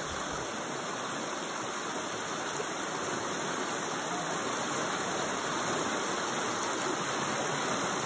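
A swollen, fast-flowing river rushing steadily over its bed: a constant, even sound of running water.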